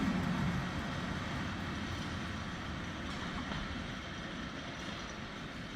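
A train pulling away from a station, its running rumble slowly fading as it moves off.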